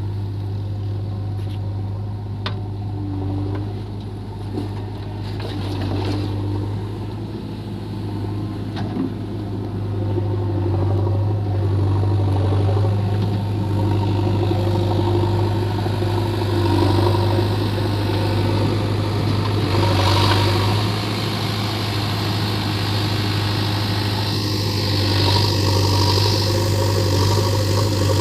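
Diesel engines of a JCB 3DX backhoe loader and a Mahindra 475 DI tractor running, a steady low drone that grows louder about ten seconds in. A few faint knocks come in the first ten seconds.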